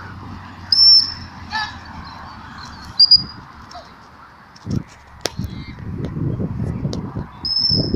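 Shepherd's whistle giving sheepdog commands: three sharp, steady high-pitched blasts, about a second in, a short one at three seconds, and a longer one near the end. A low rumbling noise runs under the second half.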